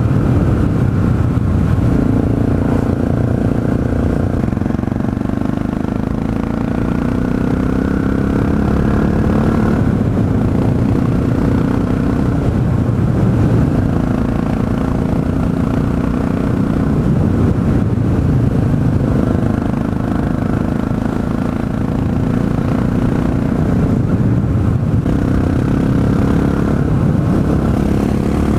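Honda FMX 650 supermoto's single-cylinder engine running under way, heard from the rider's seat. Its note climbs slowly and then drops several times as it pulls through the gears and eases off.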